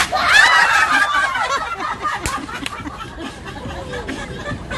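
People laughing, with one high voice sliding down in pitch over the first second and a half, then mixed chatter and laughter. A single sharp knock comes about two seconds in.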